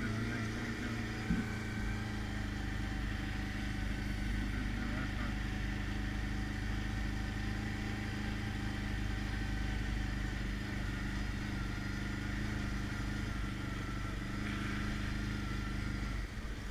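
ATV engine running at a steady speed while the quad rides along a rocky dirt trail, with tyre and trail noise underneath.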